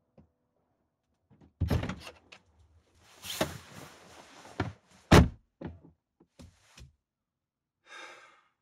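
Someone getting into a car: a thud as the door opens, clothes rustling against the seat, then the car door shutting with a heavy thunk, the loudest sound. A few light clicks follow, and there is a short rasp near the end.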